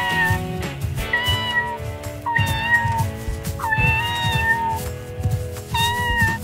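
A kitten meowing five times, each meow a drawn-out high call, over background music.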